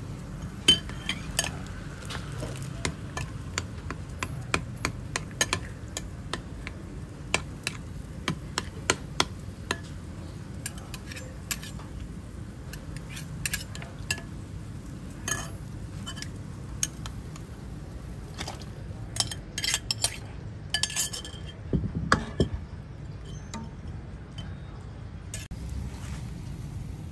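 Metal spoon and ladle clinking and scraping against a ceramic bowl as minced pork is scooped and worked, in light irregular clinks with a busier cluster about two-thirds of the way through, over a low steady rumble.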